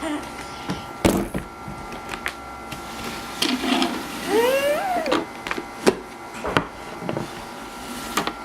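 Scattered knocks and clicks of objects being handled, with a short squeak that rises and then falls in pitch about halfway through.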